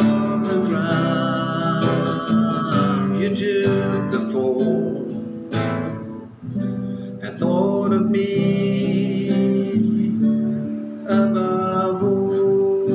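Acoustic guitar strumming a slow song accompaniment, steady chords with regular strokes.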